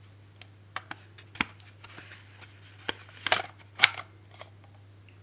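Handling noise: about a dozen light clicks and taps at irregular moments, the loudest near the middle and around four seconds in, over a steady low electrical hum.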